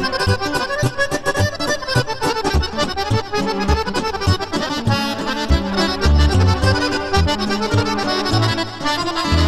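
Chromatic button accordion playing a lively melody over short, evenly pulsed bass notes and chords.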